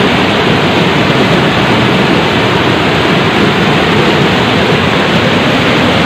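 Waterfall pouring down a sloping rock slab and churning into a pool, close to the microphone: a loud, steady rush of water.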